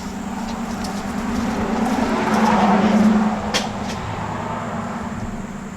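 Car engine running at low speed while the car is moved into a parking spot, growing louder to a peak about three seconds in and then easing off. A single sharp click comes just after the peak.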